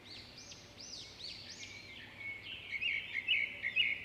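Birds chirping: a run of rising-and-falling chirps about every half second for the first two seconds, then quicker, lower twittering notes.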